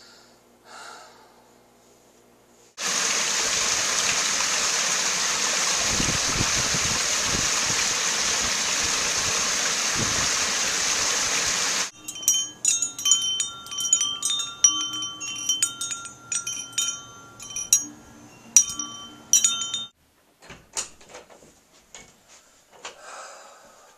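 A loud, steady rushing noise cuts in a few seconds in and stops abruptly near the middle. Hanging tubular wind chimes then ring and clink, several tones sounding together, and give way to faint scattered clicks near the end.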